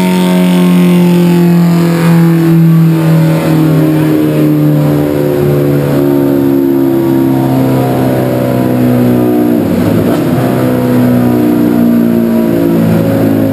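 Suzuki B-King's 1340 cc inline-four running hard on a dynamometer. The engine note falls slowly over about ten seconds as the revs come down, turns rough for a moment, then settles into a steadier, somewhat higher note near the end.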